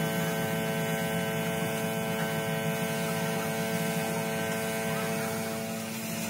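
Steady machine hum with an even hiss of air over it: a compressor running while a gravity-feed spray gun sprays paint.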